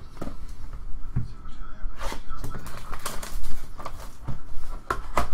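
Plastic shrink wrap being torn and crinkled off a sealed box of football cards, with a few knocks from the cardboard box being handled. It is a run of sharp crackles, loudest about three and a half seconds in.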